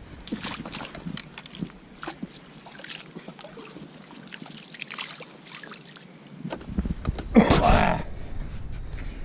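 Small splashes and sloshing of pond water as a landing net is dipped in and a fish swims out of it. About seven seconds in there is a louder, short rush of water as the net is lifted out and drains.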